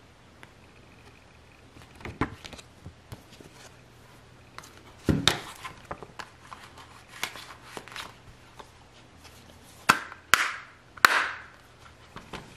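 Paper booklet and plastic Blu-ray case being handled: scattered taps, clicks and rustling, then three sharp snaps about ten to eleven seconds in as the case is shut.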